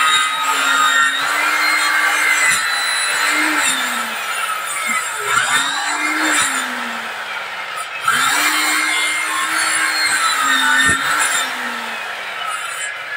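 Black & Decker circular saw cutting wood in several short passes. The motor spins up, holds its pitch through the cut, then drops and winds down, about three times.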